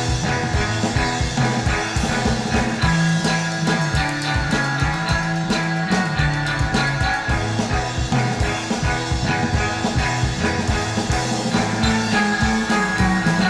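Outro rock music: guitar over a bass line and a steady drum beat.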